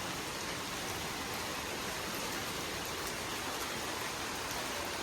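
Steady hiss of rain and wind from a thunderstorm squall line.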